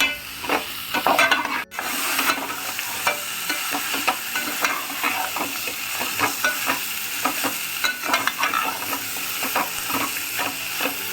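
Chicken pieces sizzling as they fry in oil and spice paste in a pot, stirred with irregular scraping and clicking against the pot. The sound dips briefly for an instant about two seconds in.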